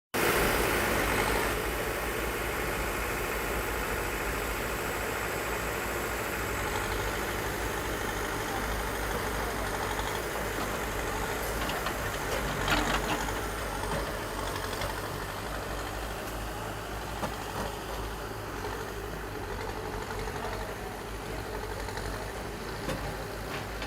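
Bulldozer's diesel engine running steadily, with a brief clatter about halfway through.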